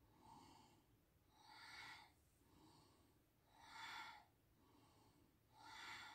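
A woman doing Bhastrika bellows breathing at a slow pace: softer breaths alternate with stronger, forced ones, with a strong breath about every two seconds, three times in all. The stronger breaths are the active exhale that pulls the belly back, and the softer ones are the relaxed inhale.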